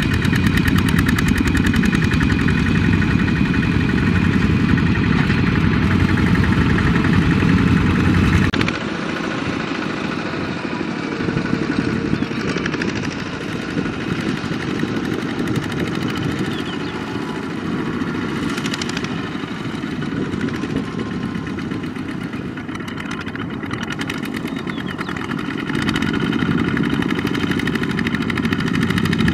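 Single-cylinder diesel engines of Kubota two-wheel walking tractors running steadily as they haul trailers loaded with rice sacks. The engine sound drops abruptly quieter and thinner about a third of the way through, then grows louder again near the end.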